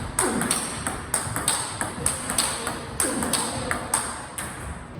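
Table tennis rally: the ball is struck in forehand drives with a racket faced with Hurricane 3 Chinese rubber, alternating with bounces on the table. The result is a steady run of sharp clicking hits, about three a second.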